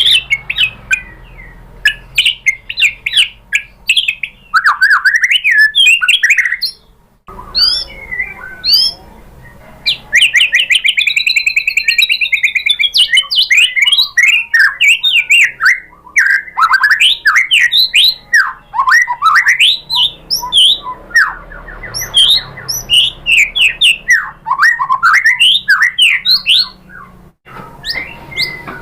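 White-rumped shama singing a fast, varied song of whistled notes, chirps and harsher calls, with short pauses about seven seconds in and near the end.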